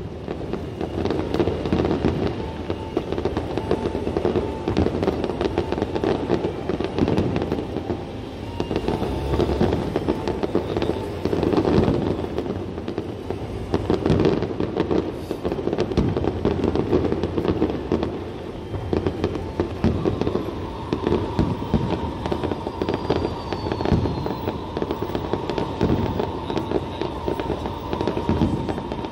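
Fireworks display: aerial shells bursting in rapid succession, a continuous run of bangs and crackling with no let-up.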